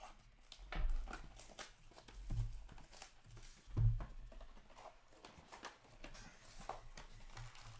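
Stacks of trading cards being handled and squared up on a wooden table: three dull knocks about a second and a half apart, among light clicks of card edges.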